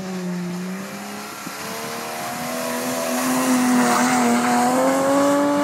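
Drift car's engine held at high revs while the car slides sideways past, its pitch dropping briefly, then climbing slowly and getting louder as it comes closer. Tyre hiss rises along with it.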